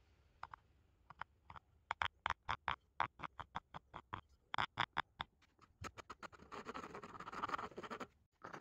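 Round rasp scraping the end of a wooden katana handle in short, quick strokes, about four a second. The strokes give way to a faster, continuous scraping near the end.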